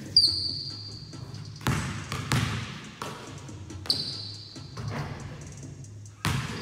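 Basketballs bouncing on a gym's hardwood floor in a string of sharp thuds, and twice, right at the start and about four seconds in, a shot strikes the metal rim with a ringing clang.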